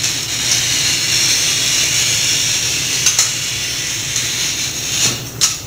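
A glass cutter's wheel scoring a long line across a sheet of glass: a steady, even scratching hiss, the consistent sound of a good score under even pressure, that stops about five seconds in, followed by a few light clicks.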